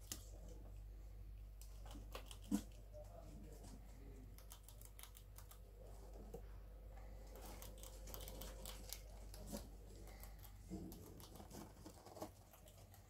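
Pet rats rustling and scrabbling about in wood-shaving bedding, a run of small scattered clicks and crinkles, with one sharper knock about two and a half seconds in. A low steady hum lies underneath.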